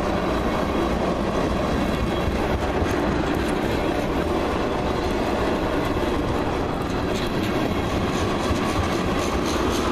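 Freight train of ethanol tank cars rolling past steadily, the steel wheels clicking over the rail joints.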